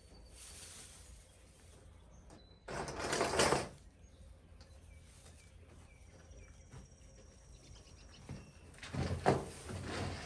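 Burlap fabric and fern fronds rustling as hands tuck a burlap liner into a wire hanging basket. There are two louder bursts, one about three seconds in and one near the end.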